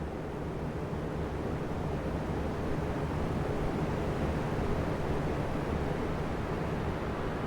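Three oscillating electric fans running together: a steady rush of moving air with a faint low motor hum, swelling gently toward the middle and easing slightly as the fans sweep.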